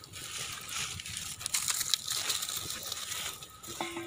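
Open wood fire crackling under a clay cooking pot, with a few sharp pops.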